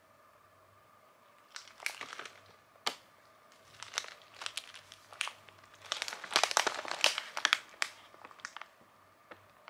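Metallised plastic snack packet crinkling as it is handled, in irregular bursts of rustling that are densest and loudest about six to seven and a half seconds in.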